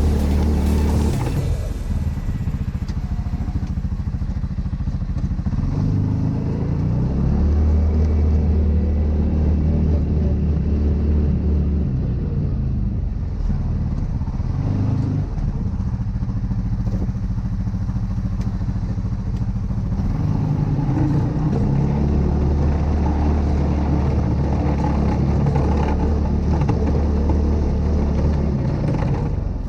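2018 CFMoto ZForce 500 side-by-side's engine running under changing throttle, its pitch stepping down and back up every several seconds.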